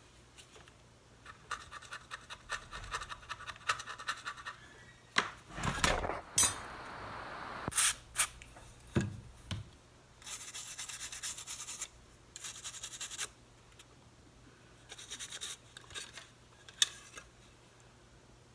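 A brush scrubbing the liquid-damaged MacBook Pro logic board in quick strokes. Then come a few knocks of handling and several short hissing bursts of aerosol cleaning solvent.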